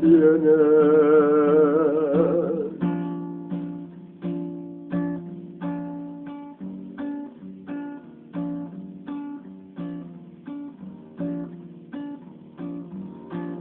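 Music: a singer holds the last word of a line with a wavering vibrato for about three seconds, then acoustic guitar plays chords alone in a steady, even rhythm.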